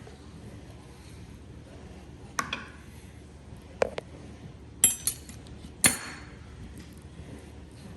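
Four sharp clinks of hard objects knocking together, about a second apart, the last two the loudest, over a faint steady background.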